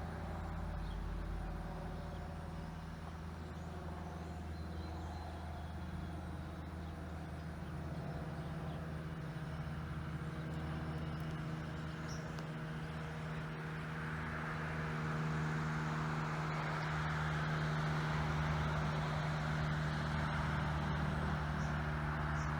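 Car driving on the road: a steady low engine hum with tyre and road noise, the road noise growing louder about two-thirds of the way through.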